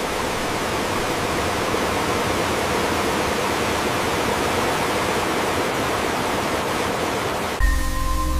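Water gushing steadily from a large pipe outlet into a basin, an even full rush of pouring water. It cuts off suddenly near the end, where music with a deep bass comes in.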